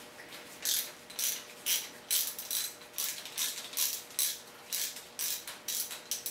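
Hand socket ratchet clicking in short runs, about twice a second, as it is swung back and forth to loosen the rocker arm retaining bolts on a diesel cylinder head.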